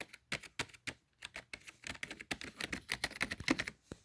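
Typing on a Razer Cynosa Chroma membrane keyboard: a run of quick, squishy-sounding key presses, scattered at first and coming faster after about two seconds.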